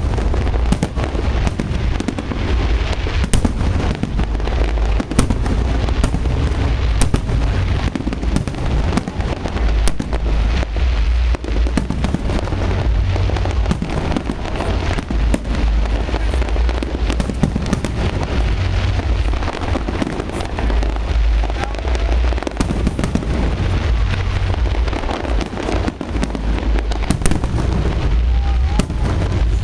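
Fireworks display going off in a dense, continuous barrage: deep booms rumbling one into the next, with many sharp cracks and crackles over them.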